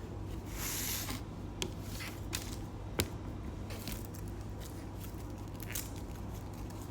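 Small handling sounds: a short hiss about a second in, a sharp click about three seconds in and a few fainter ticks and scrapes, over a steady low hum of the room.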